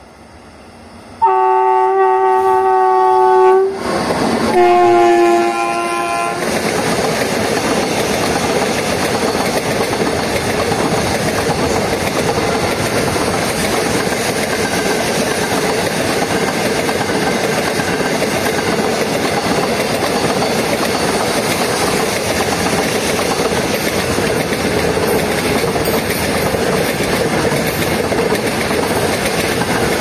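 WAG9 electric locomotive's horn sounded twice, a weird-sounding honk: a blast of about two and a half seconds, then a shorter one that sits a little lower and sags in pitch. After the horn comes the steady noise of a long container freight train's wagon wheels running past over the rails.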